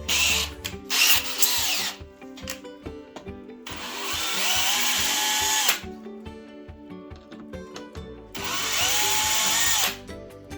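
Small cordless drill motor running in short bursts and then in two longer runs of about two seconds each. Each run spins up, holds a steady whine and winds down as it stops. Background music plays underneath.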